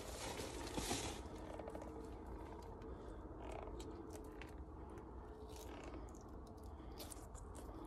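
Faint scattered clicks and rustling as a hook is worked out of a channel catfish's mouth by hand.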